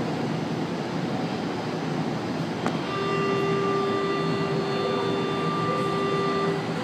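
São Paulo Metro train standing at the platform with its doors open, its motors and equipment humming steadily. After a click about three seconds in, the steady door-closing warning tone sounds for about three and a half seconds.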